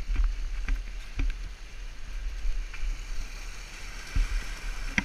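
Whitewater rushing over a low river weir, a steady hiss with a low rumble on the microphone and a few light knocks.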